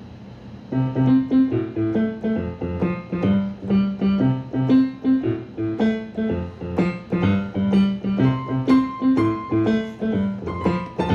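Electronic keyboard in a piano voice played by two children, a simple tune of separate notes over repeated bass notes, starting under a second in.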